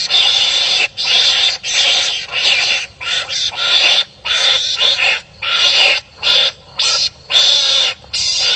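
Wild animals calling harshly at each other as they fight, a raspy screeching in a rapid series of bursts broken by short gaps.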